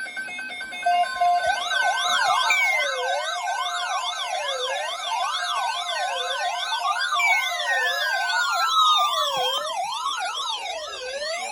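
Electronic alert sirens. Steady tones for about the first second and a half, then a fast up-and-down warble over a slower rising and falling wail, with a couple of long falling sweeps. They serve as the attention signal ahead of a tornado watch alert broadcast.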